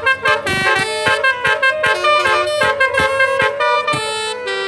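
Basuri telolet horn, a multi-trumpet car horn, playing a quick tune of short, rapidly changing notes with sharp attacks about three times a second.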